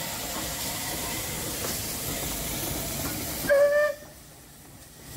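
Battle of Britain class Bulleid Light Pacific steam locomotive 34072 '257 Squadron' passing with a steady hiss of steam, then a short, loud blast on its steam whistle about three and a half seconds in.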